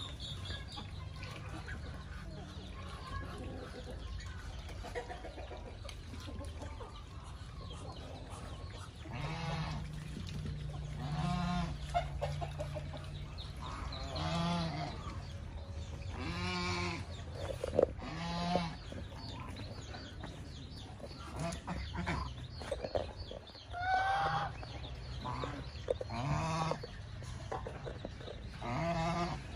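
Farmyard poultry calling: short, pitched calls repeating every two to three seconds, starting about a third of the way in, over a steady low hum.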